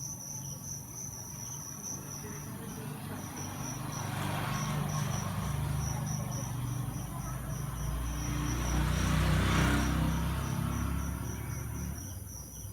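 Crickets chirping steadily, a high pulse repeating a few times a second. A low rumble swells up in the middle and fades again near the end.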